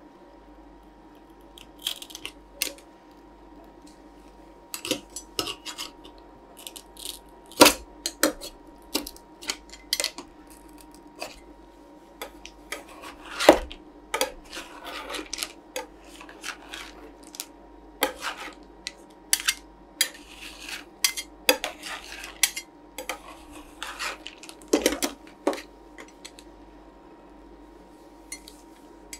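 Two metal spatulas chopping and scraping on the steel cold plate of a rolled-ice-cream machine, cutting chocolate lentils into a white chocolate ice cream base. Sharp metallic clacks come at irregular intervals, with a denser run of scraping about two-thirds of the way through. A faint steady hum runs underneath.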